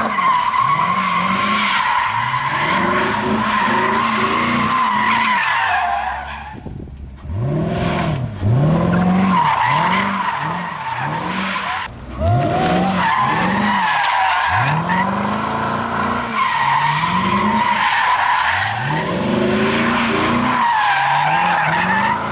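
Chevrolet Corvette Stingray's 6.2-litre V8 revving up and down again and again while its tyres squeal steadily in a smoky burnout, with two brief lulls about seven and twelve seconds in.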